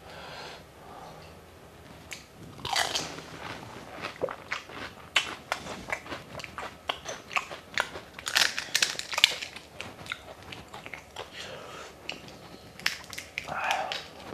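Crisp fried fuchka (pani puri) shells crunching and cracking, mixed with wet chewing while they are eaten. The sharp crackly crunches come thickest between about four and ten seconds in and again briefly near the end.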